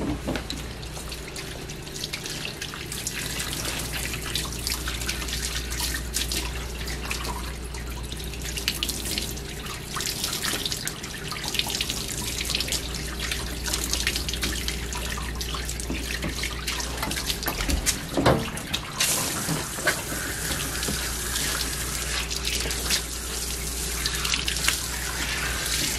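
Water spraying steadily from a hose spray nozzle over a wet dog's coat, splashing and dripping into a bathtub. The spray turns hissier about two-thirds of the way through.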